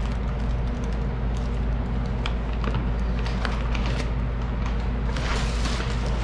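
Plastic wrapping crinkling and rustling in short crackles as it is pulled off an engine block, most busily about five seconds in, over a steady low hum.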